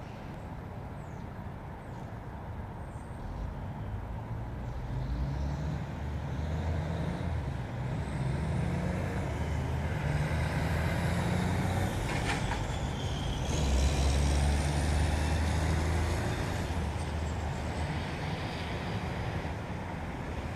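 Street traffic passing, with a heavy truck's engine rumbling and growing louder, loudest a little past halfway, then easing off.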